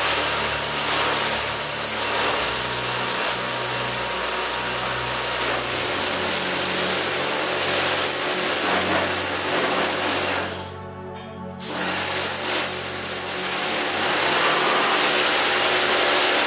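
Kärcher K3 electric pressure washer spraying a jet of water onto a terrazzo floor, a steady loud hiss. It cuts out for about a second a little past the middle, then starts again.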